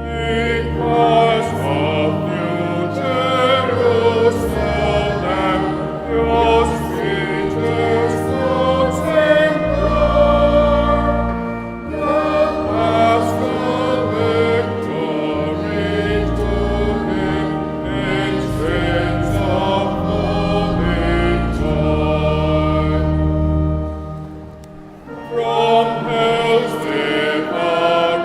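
Church choir singing with organ accompaniment: voices with vibrato over sustained low organ notes that change in steps. The sound drops away briefly near the end, then the choir and organ come back in.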